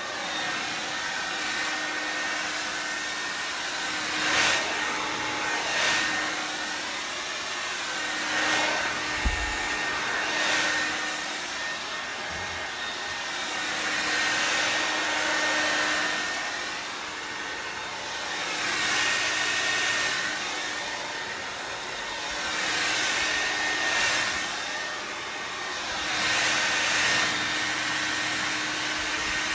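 Handheld hair dryer blowing steadily, its hiss swelling and fading every two to three seconds. A brief low thump comes about nine seconds in.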